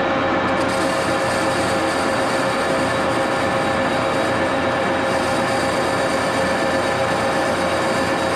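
Axelson engine lathe running under power with its spindle turning: a steady mechanical drone with a strong, constant tone. A higher hiss joins about half a second in.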